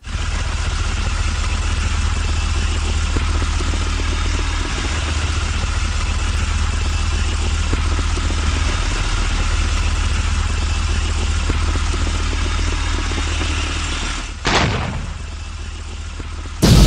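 Tank engine sound effect: a steady heavy engine rumble. About fourteen and a half seconds in a short whoosh cuts across it, and a loud explosion blast bursts in right at the end.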